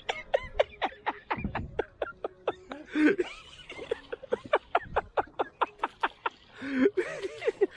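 A man laughing in quick, rhythmic bursts, about four to five a second.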